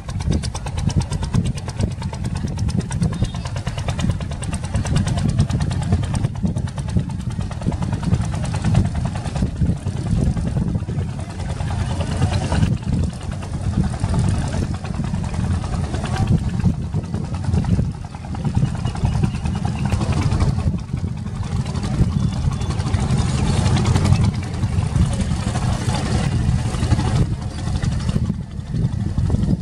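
A boat's engine idling steadily with a low rumble, voices mixed in.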